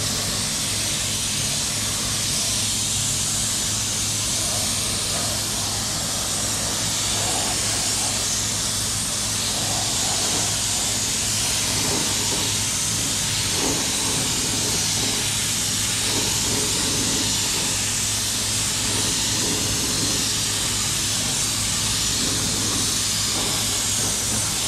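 Compressed-air gravity-feed spray gun hissing steadily as it sprays paint, with a low steady hum underneath.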